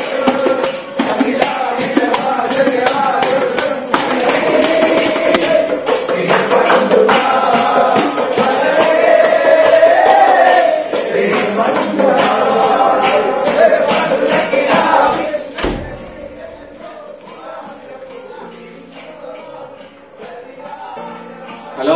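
Group of men singing together to hand-shaken tambourines jingling in a fast, steady rhythm. About fifteen seconds in it drops suddenly to a faint, dull continuation of the same jingling and singing.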